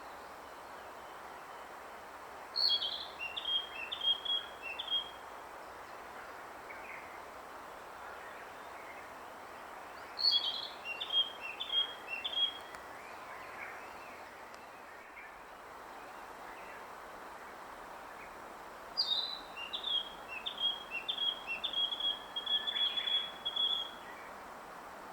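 A songbird singing three separate phrases, each opening on a high note and dropping into a quick run of short notes alternating between two pitches; the third phrase is longer and ends in a steady trill. A steady outdoor hiss runs underneath.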